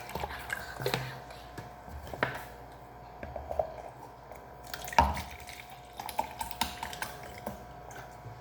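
Scattered small clicks, knocks and clinks of kitchen things being handled, with one sharper knock about five seconds in.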